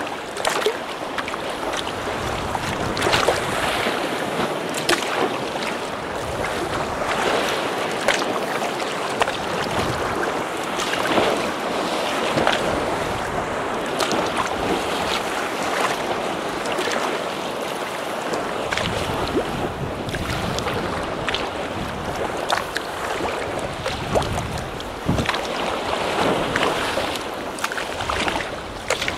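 Sea water splashing and rushing against a kayak's hull as it moves through choppy water, with many irregular sharp splashes and some wind on the microphone.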